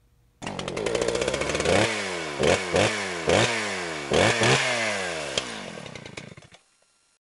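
An engine comes in suddenly and is revved in about six quick throttle blips, its pitch dropping back after each, then fades away.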